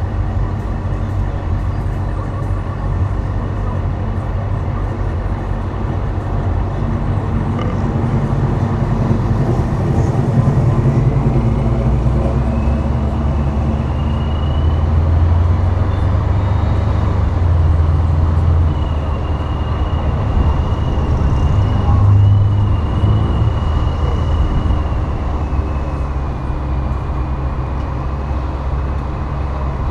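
Dodge Charger SRT8's Hemi V8 engine running under way as the car drives, its low exhaust note swelling louder several times with the throttle.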